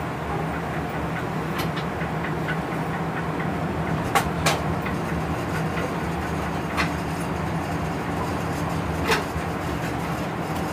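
DB class 139 electric locomotive running at speed, heard from its cab: a steady rumble with a low hum. A few sharp clicks cut through it, two close together about four seconds in and single ones later.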